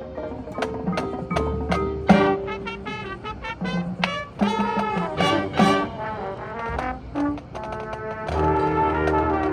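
Marching band brass section (trombones and trumpets) playing a loud passage with sharp accented chords, swelling into a held chord near the end.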